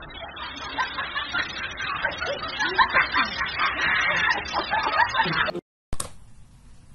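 A Siberian husky vocalizing in a rapid string of short, wavering yowls and grumbles over a steady hiss. It cuts off suddenly about five and a half seconds in.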